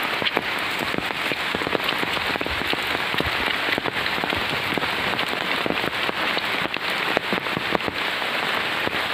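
Steady rain falling, with many separate drops striking close by as short, sharp ticks.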